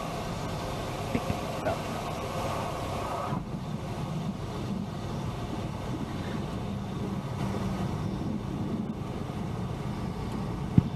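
A Cessna 172M's Lycoming four-cylinder engine running at low power in the cabin as the plane rolls out on the runway after landing. A higher-pitched noise over the engine stops suddenly about three seconds in, and there is one sharp knock near the end.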